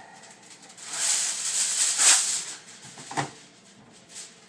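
Aluminium foil being handled and crinkled: a hissing rustle for about a second and a half, then a short rustle about three seconds in.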